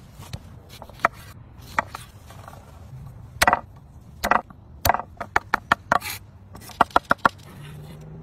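Chef's knife chopping garlic cloves on a wooden cutting board: sharp knocks of the blade on the wood, a few spread out at first, then quicker runs of several strokes a second.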